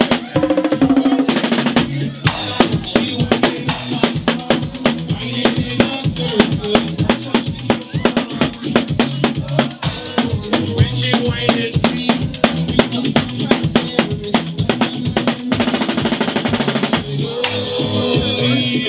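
Drum kit played live and fast: snare and rimshot strikes, bass drum and cymbals, over steady dance music. A quick snare roll comes near the end.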